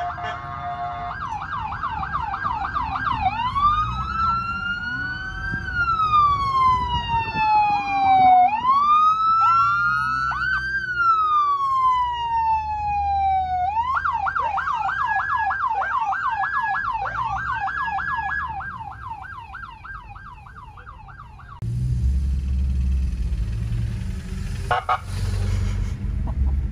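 American police car electronic siren running through its tones. A fast yelp of about three sweeps a second gives way to two slow rising-and-falling wails, then the fast yelp returns. The siren cuts off abruptly about three-quarters of the way through, leaving a low engine rumble and a single sharp knock near the end.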